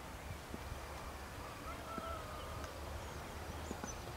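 Open-air ambience: faint birds chirping in short high calls over a steady low rumble.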